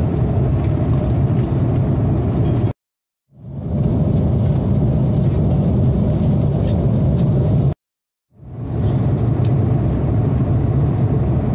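Steady low rumble of an Airbus A330-300 airliner cabin in cruise, engine and airflow noise. It cuts out completely twice for about half a second and fades back in each time, with a few faint clicks near the end.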